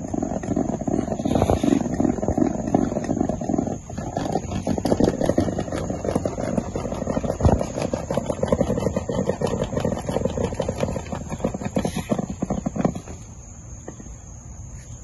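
Yogurt-and-milk lassi being churned in a steel pot with a wooden hand churner (madhani) spun back and forth between the palms: a fast, rhythmic sloshing churn that drops much quieter about thirteen seconds in.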